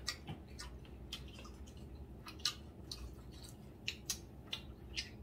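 Scattered soft clicks and taps of people eating at a table: cutlery touching plates and chewing, about a dozen irregular ticks with a couple of louder ones in the middle and near the end.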